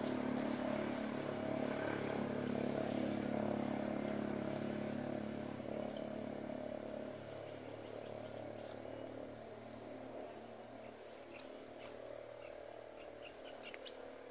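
Insects droning in the surrounding vegetation: a steady high tone with a faster pulsing chirp beneath it. Under it a low hum, strongest at first, fades away about halfway through.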